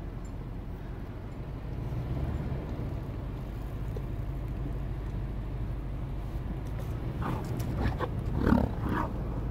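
American bison grunting: a low rumbling, with a few short louder grunts near the end, the loudest about eight and a half seconds in, as one bison comes up close.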